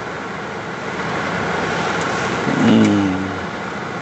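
Steady running noise of a car with its air conditioning on, heard from inside the cabin. About two and a half seconds in, a brief louder pitched sound rises over it for under a second.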